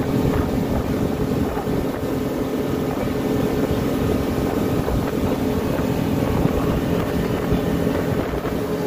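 Motorboat underway at speed: a steady engine drone with wind buffeting the microphone.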